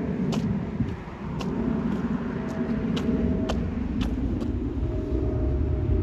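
Steady low outdoor rumble with a few sharp clicks scattered through it and a faint steady hum in parts.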